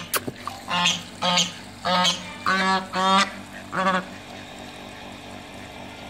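Domestic white goose honking: six loud calls in quick succession, then it falls quiet about four seconds in.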